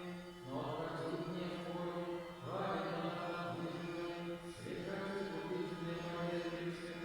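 Orthodox church bells ringing. A bell is struck about every two seconds and its tones ring on and overlap the next strike, with faint high chimes of small bells between.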